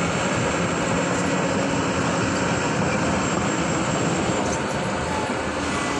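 Heavy diesel engine running steadily with a constant drone.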